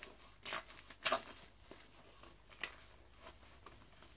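Light handling of a vinyl LP's cardboard sleeve: a few short, soft rustles and scuffs as the record is turned over in the hands, the clearest about a second in.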